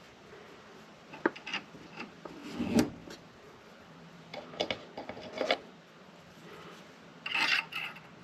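Scattered clicks and knocks of small objects being handled and set down on a workbench, with a short rustle near the end.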